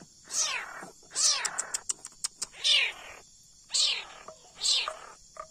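Leopard cat kitten mewing: about five high, thin calls, each sliding quickly down in pitch, with a few short clicks about two seconds in.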